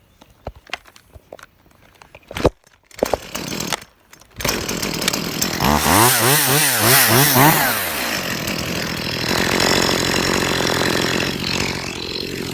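A chainsaw starts a few seconds in after a sharp knock. It revs up and down rapidly, then runs steadily at high speed.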